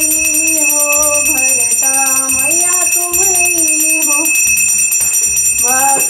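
Puja bell ringing continuously while a devotional aarti melody is sung in slow held notes.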